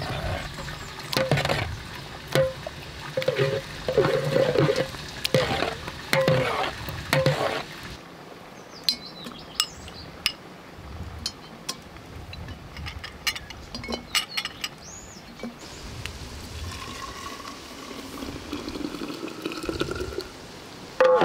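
Enamel ladle scooping hot melon syrup in a metal pot, clinking and ringing against the metal. Then scattered glass clinks, and syrup poured from the ladle into a glass bottle, its tone rising in pitch as the bottle fills.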